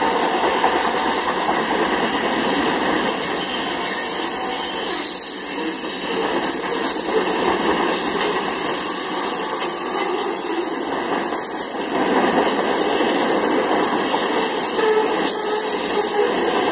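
Freight train cars rolling past: a steady rumble and hiss of steel wheels on the rails, with scattered clicks of wheels over rail joints.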